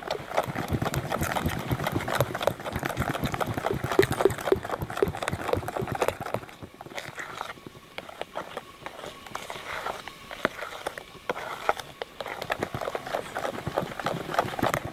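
Cake batter being stirred by hand in a bowl: a utensil tapping and scraping against the bowl in quick, irregular strokes, easing off briefly about halfway through.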